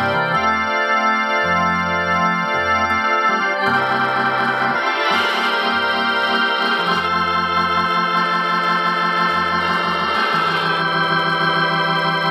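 Yamaha PSR-750 keyboard played with a Hammond B-3 organ voice: sustained chords over a moving bass line, with a pulsing, swirling simulated Leslie rotary-speaker effect.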